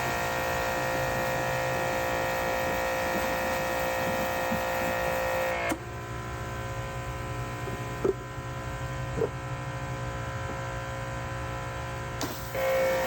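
An electric motor running with a steady hum. It cuts off suddenly about six seconds in, leaving a quieter stretch with a couple of light knocks, and starts up again near the end.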